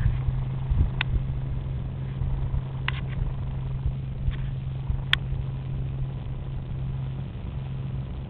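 An engine running steadily at idle, a constant low hum with an uneven low rumble beneath it. A few sharp clicks come about one, three and five seconds in.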